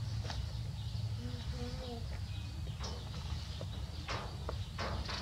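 Cloth rustling and handling noises as a baby monkey is dressed in a new outfit, over a steady low rumble. Two short, low cooing calls come about a second in.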